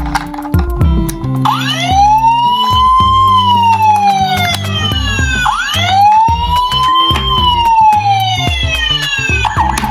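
Police siren wailing through two cycles, each a quick rise in pitch followed by a slow fall, over background music with a bass line.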